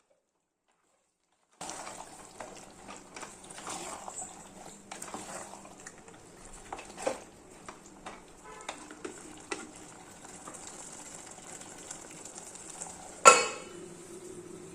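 Food cooking in a pot on high heat with a steady sizzle, and a metal spoon stirring and scraping with scattered clinks against the pot. Near the end, one loud metal clank rings on briefly.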